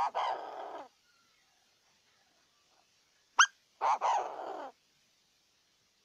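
Male Chinese francolin calling: a very short, sharp high note followed by a harsh phrase about a second long. The end of one phrase falls right at the start and a full phrase comes about three and a half seconds in.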